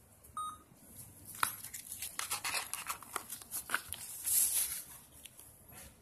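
Handling noise of a Zippo lighter's cardboard gift box and its packing paper: a run of light clicks and taps with rustling, and a brief scraping hiss about four seconds in. A short beep sounds just after the start.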